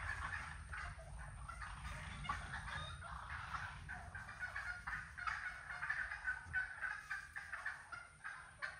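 A group of wild turkeys calling, many short overlapping calls.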